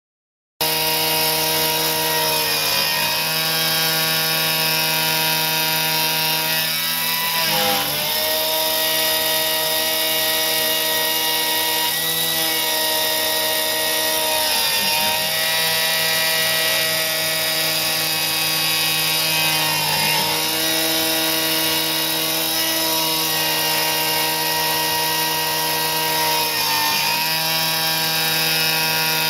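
CNC router spindle at 8000 rpm milling a pocket in an aluminium block with an end mill, taking 0.5 mm passes at 600 mm/min: a steady whine of several pitches over a hiss from the coolant spray nozzle, starting about half a second in. The pitch sags briefly every five seconds or so.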